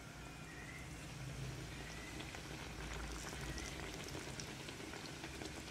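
Faint, steady sizzling and crackling of hot oil as a bread pathiri deep-fries in a pan, with oil spooned over its top so it puffs up. The crackle thickens a little about halfway through.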